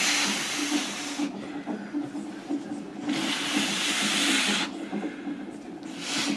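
Long hissing breaths drawn through a gas-and-air (nitrous oxide) mouthpiece during a labour contraction, three in all, the last one short near the end, over a low steady hum.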